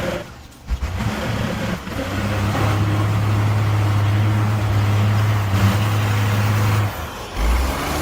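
Heavy off-road truck's diesel engine working hard under load, holding a steady deep note for several seconds before cutting off abruptly near the end.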